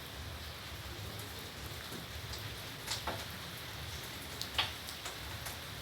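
Steady rain falling, with a few sharper taps standing out, about three seconds in, again a second and a half later, and near the end.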